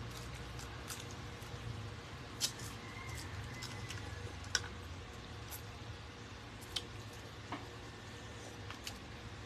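Quiet mealtime sounds: a few sharp clinks of a metal spoon against a ceramic bowl, spaced a couple of seconds apart, over a low steady hum.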